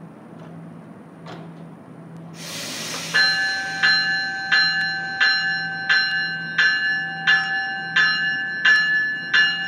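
NJ Transit Multilevel cab car at the platform: a short burst of air hiss, then its warning bell starts ringing steadily, about one and a half strikes a second, as the train gets under way.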